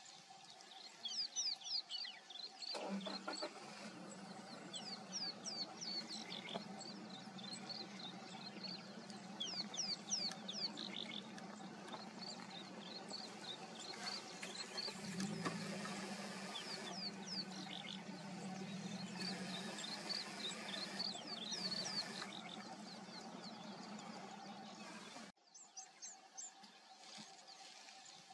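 Many small birds chirping and twittering in the bush. A vehicle engine idles under them from a few seconds in, changes pitch briefly around the middle, and stops suddenly a few seconds before the end.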